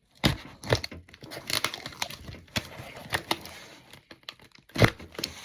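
A cardboard mail package being handled and opened by hand: irregular rustling, crinkling and tearing with scattered sharp knocks and clicks, the loudest knock coming near the end.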